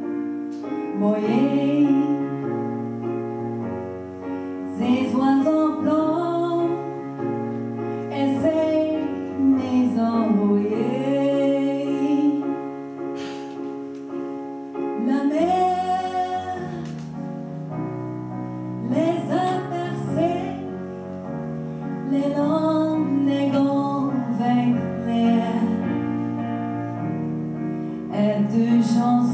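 A woman sings a solo melody in phrases into a microphone, accompanied by piano chords.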